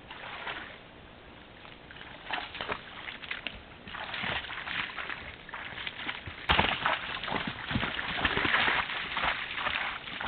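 Moose moving through tall grass and undergrowth: irregular rustling and footsteps, getting louder about four seconds in, with one sharp click about halfway through.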